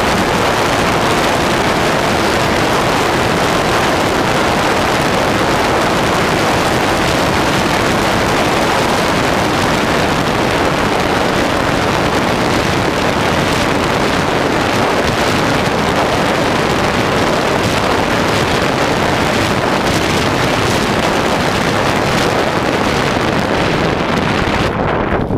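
Loud, steady rush of airflow on the microphone of a GoPro riding in the cockpit of an electric Durafly T-28 RC model plane in flight, mixed with its motor and propeller. The hiss thins out near the end as the throttle comes back for the landing.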